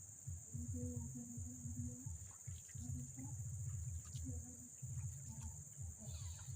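Insects chirring in a steady high drone, over an uneven low rumble of background sound.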